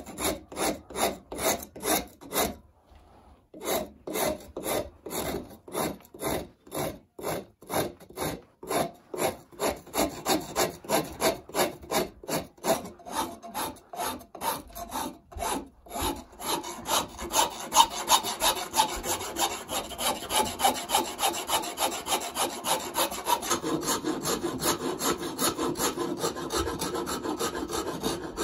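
Hand rasp working a wooden banjo neck to shape: rhythmic rasping strokes at about two a second, with a short pause about three seconds in. About halfway through the strokes become quicker and closer together.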